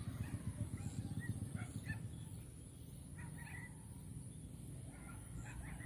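Short bird calls in three brief clusters, over a steady low rumble.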